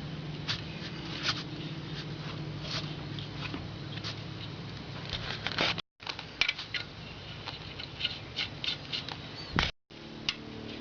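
Light irregular metallic clicks and ticks of wheel nuts being handled and spun onto the wheel studs by hand, over a steady low hum. The sound cuts out completely twice, briefly.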